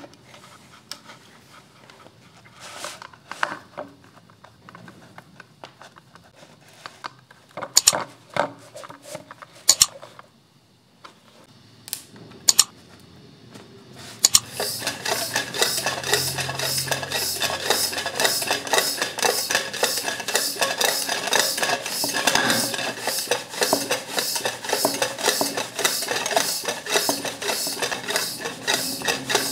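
Clicks and knocks as the spray-gun fittings and paint bottle are handled. About halfway in, a loud, fast, evenly pulsing hiss starts as the homemade sprayer, a spray gun fed from a motorcycle inner tube used as the air tank, sprays paint.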